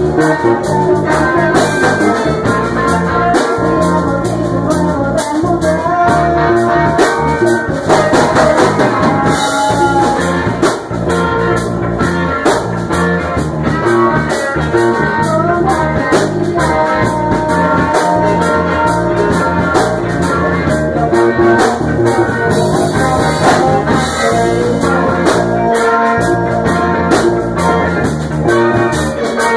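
A live band playing a blues number: electric guitars and a Tama drum kit, with a woman singing into a microphone.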